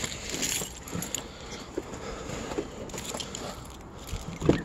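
Footsteps on packed snow with light jingling and small clicks, then a sharp knock near the end.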